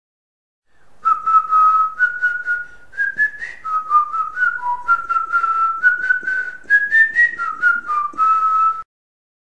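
Intro music: a whistled tune of held notes over a light, rhythmic percussive beat, starting just under a second in and stopping abruptly near the end.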